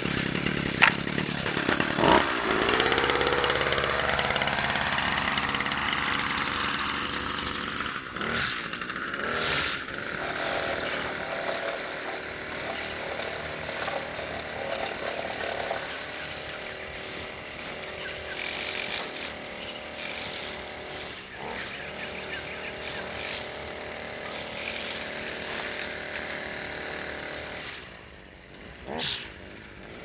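String trimmer running, its engine pitch climbing over the first several seconds, then holding steady and slowly growing fainter as it moves away. Near the end it drops back, with one short burst of revs.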